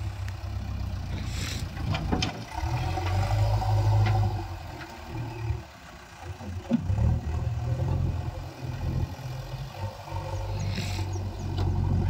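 Diesel engines of a JCB 3DX backhoe loader working its loader arm and of a Mahindra Arjun tractor running, a low drone that swells and eases as the loader tips soil into the tractor trolley and backs away. A few knocks sound about two seconds in as the soil lands in the trolley.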